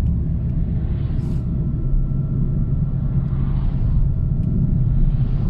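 A car running along the road, heard from inside the cabin: a steady low rumble of engine and tyres.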